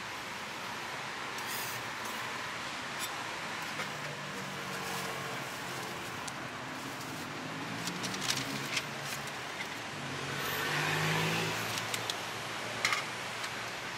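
Steady street background with a motor vehicle engine running, which swells about ten to twelve seconds in as it passes. A few sharp clicks and taps come from a metal spatula on the steel crepe griddle.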